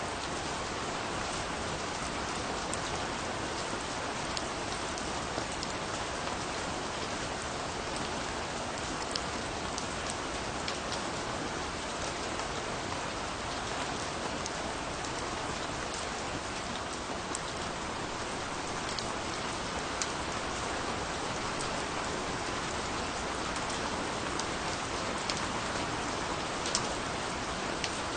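Steady rain falling, an even hiss with scattered sharper drop ticks throughout.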